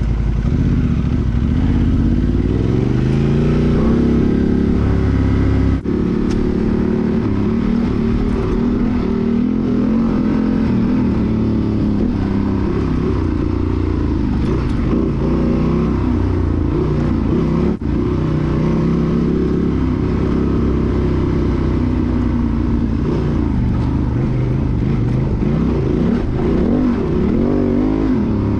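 Honda Transalp XL750's 755 cc parallel-twin engine, run through an aftermarket Mivv Dakar exhaust with a decat pipe, revving up and down continuously as the throttle is worked while riding off-road. The sound breaks off briefly twice, about six seconds in and again near eighteen seconds.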